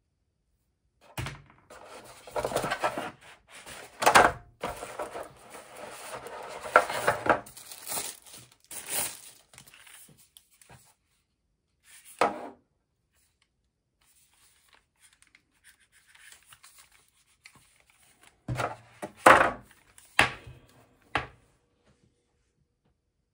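Unboxing handling sounds: rustling and crinkling of plastic wrap and packaging as headphones and their cable are handled, then a few loud knocks near the end as the over-ear headphones are set down on a wooden desk.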